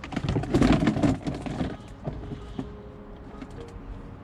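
Plastic pet carrier clattering and scraping as it is snatched up off the paving, a burst of rattling and scuffling lasting about a second and a half, then a few light knocks.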